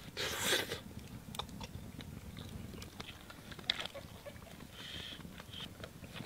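A person blows once on hot spit-roasted rabbit, a short breathy hiss, then bites into the meat and chews with small crunching clicks.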